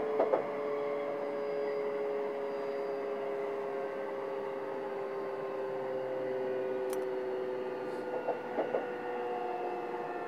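Running sound heard inside an E233 series electric motor car: the traction motor and inverter whine, a few steady tones slowly falling in pitch as the train slows for the next station. A short run of clacks from the wheels over rail joints comes at the start and again about eight seconds in.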